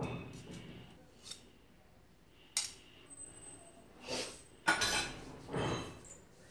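Metal kitchen utensils and pot clinking and knocking in a string of separate strikes, with a louder clatter about five seconds in and a short metallic ring a little after three seconds.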